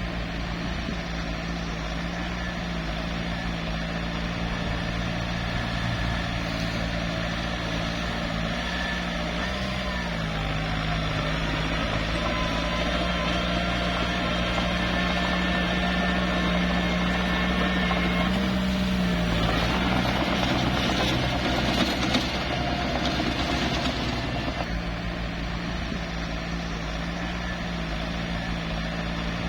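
Small bulldozer's diesel engine running steadily at work, its pitch drifting slightly up and then dropping about two-thirds of the way through, followed by a few seconds of rougher, noisier running before it settles back.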